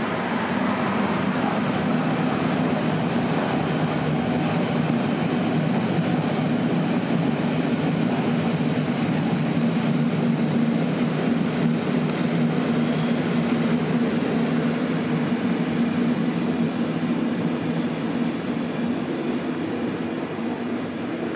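Electric trains running along the tracks, among them a Berlin S-Bahn commuter train: a steady rumble with a low hum that eases slightly near the end.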